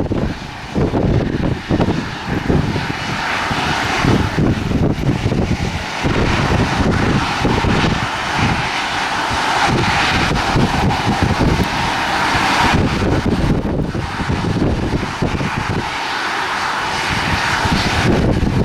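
Jet airliner engines running with a steady roaring hiss, while gusts of wind buffet the microphone with an irregular low rumble.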